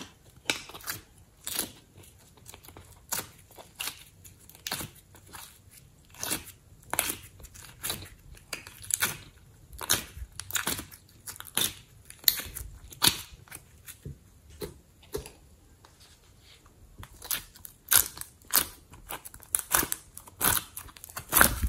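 Hands squeezing and twisting soft clay in a clear plastic piping bag and pressing slime: sharp crackles and crinkles, one or two a second. They thin out in the middle and come thicker near the end.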